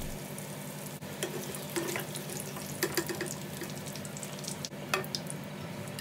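Chicken curry sizzling in a pan while it is stirred, with a few light clicks of the spoon against the pan; the sizzle follows tamarind water being added to the hot masala.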